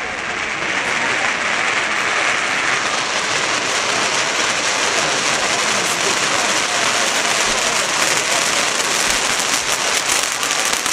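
Aerial fireworks crackling: a dense, steady crackle of many small reports, getting sharper and spikier in the second half.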